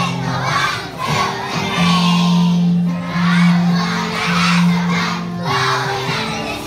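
A group of young children singing loudly, close to shouting, along with backing music that holds long low notes.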